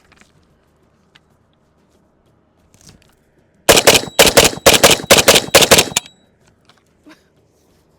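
Zastava ZPAP92 AK-pattern pistol firing double taps: about ten shots in quick pairs, lasting a little over two seconds, starting about halfway in. A few faint clicks of handling come before the shots.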